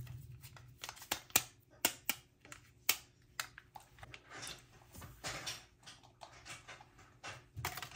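Irregular light clicks and taps, about a dozen, with faint rustling between them.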